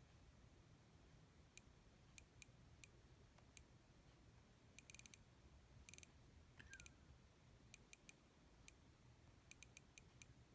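Faint small clicks of a Creative Zen Micro MP3 player's controls being pressed to scroll through its menus: single clicks about a second apart, with two quick runs of clicks near the middle.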